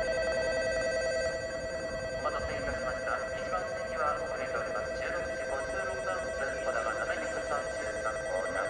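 Electronic platform bell of a Shinkansen station ringing continuously, a steady two-note ring that starts suddenly, sounding as a train approaches or is about to depart.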